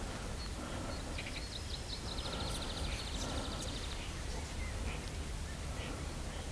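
Outdoor birdsong: a songbird's rapid high trill starting about a second in and lasting about three seconds, with a few scattered chirps, over a steady low background rumble.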